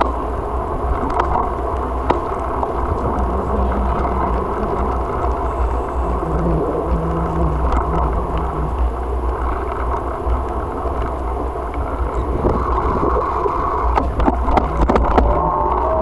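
Wind rushing over the microphone of a camera on a moving bicycle, with the noise of the tyres rolling on pavement. A cluster of rattling knocks comes near the end.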